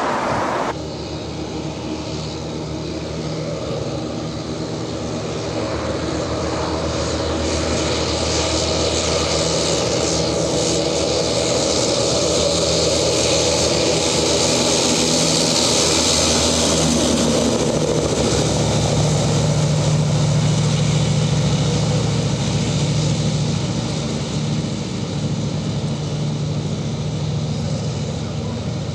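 British Army Ajax tracked armoured vehicle driving past, its engine a steady drone under the noise of its tracks. The sound grows louder towards the middle, then eases off as the vehicle moves away.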